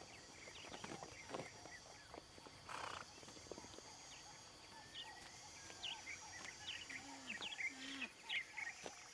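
Grassland ambience: a steady high insect drone, with many short bird chirps from about halfway through. Early on come a few hoof scuffs and a short breathy blow, and two short low calls sound near the end.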